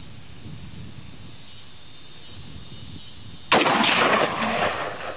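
A single shot from an AR-15 rifle firing 55-grain 5.56 NATO ammunition, about three and a half seconds in, followed by an echo that trails off over about a second and a half.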